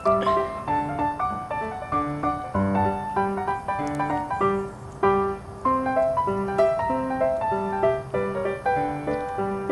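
Piano music playing as a steady flow of single notes and chords.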